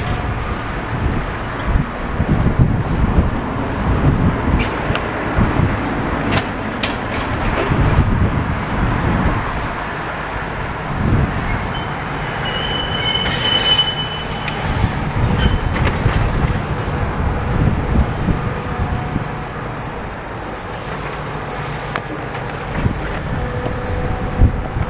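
Demolition machinery working: a steady low rumble with scattered clanks and scraping, and a brief high metallic squeal about halfway through.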